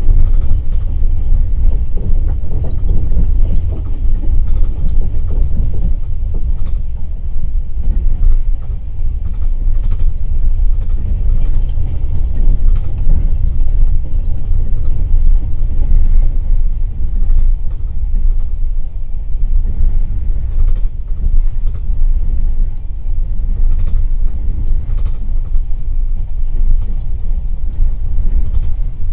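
Passenger railway car running at speed, heard from inside the car by the window: a loud, steady low rumble of the wheels on the track, with faint scattered clicks.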